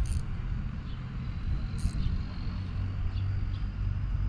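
Low, steady engine rumble, with a few short high clicks from the fishing reel as a hooked fish is fought on the rod.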